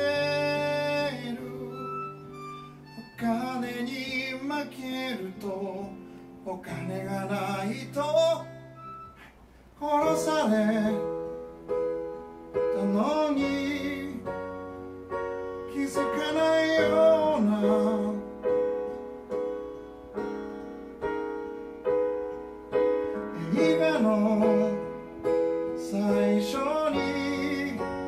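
Live acoustic music: a male singer with acoustic guitar, accompanied by violin for the first nine seconds or so, then, after a short break, by keyboard with gliding sung lines over the chords.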